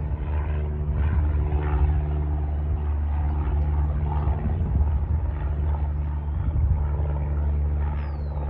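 Propeller aircraft engine running with a steady low drone.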